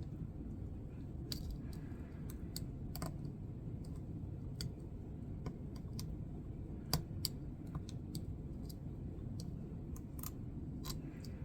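Lock pick working the pins of a pin-tumbler padlock: irregular faint metallic clicks as the pins drop and set, with one sharper click about seven seconds in.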